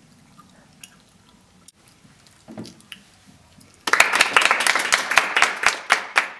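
Quiet room tone with a few faint small noises, then about four seconds in, hands start clapping loudly, several claps a second.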